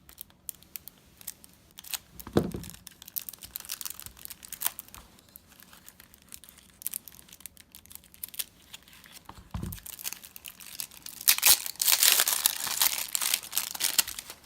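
Cellophane wrapping on a deck of playing cards being torn open and crinkled, scattered crackles with a couple of soft thumps, then a louder, denser stretch of crinkling and tearing near the end.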